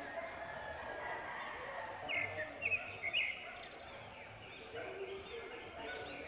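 Swiftlets chirping: a few short, sharp high chirps about two to three seconds in, over fainter bird calls.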